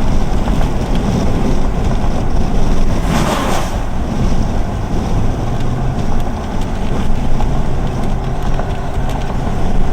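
Wind buffeting the microphone over a steady low rumble, with a brief louder hiss about three seconds in.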